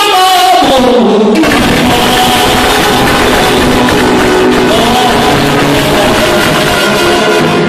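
Live Roma band music, played loud through a PA: a man singing over electric guitar, keyboard and a small strummed mandolin. It opens with a held vocal note that slides downward.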